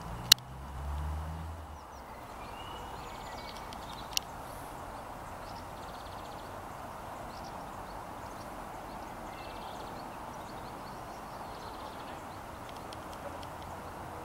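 Steady outdoor background noise with a faint bird chirp or two, broken by a sharp click just after the start and a second click about four seconds in, with a short low rumble of camera handling after the first click.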